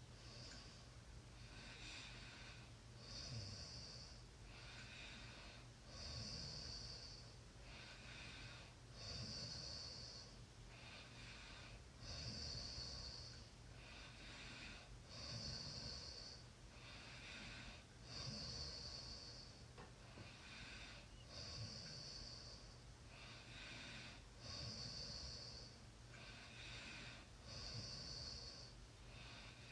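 Faint, steady snoring, about one breath every three seconds, each breath pairing a rough, low snore with a higher hiss.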